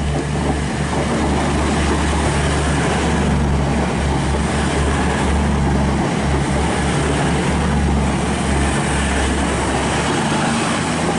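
CrossCountry Class 220 Voyager diesel-electric multiple unit passing through the station at speed: a steady, loud rush of diesel engines and wheels on the rails, with a low rumble that eases about ten seconds in as the train goes by.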